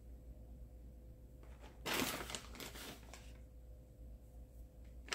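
Plastic bag of shredded cheddar crinkling as it is handled, for about a second and a half starting about two seconds in, over a faint steady hum.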